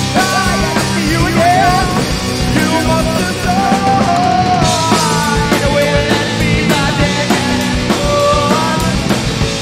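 Loud rock music with a drum kit keeping a steady beat.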